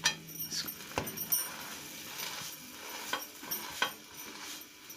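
Scattered light clicks and knocks from an iron griddle (tawa) and utensils, about half a dozen over a few seconds, as a kulcha is pressed down by hand on it, over a faint sizzle of butter on the low-heated pan.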